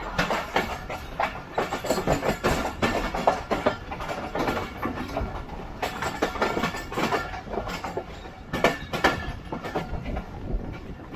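Passenger train running at speed, heard from aboard: its wheels clatter in quick, irregular knocks over rail joints and points above a steady rumble.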